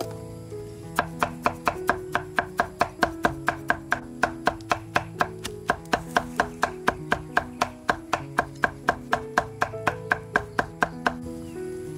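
Knife chopping quickly and evenly on a cutting board, roughly five sharp strokes a second. It starts about a second in and stops shortly before the end. Background music with a plucked-guitar sound plays underneath.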